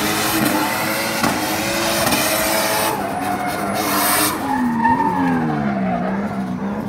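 Drift car's engine held at high revs while its rear tyres spin and screech across the tarmac. About four seconds in the tyre noise drops away, and the engine note dips, rises once more and falls as the driver comes off the throttle.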